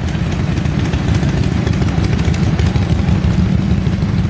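Loud engine running close by, a steady low rumble.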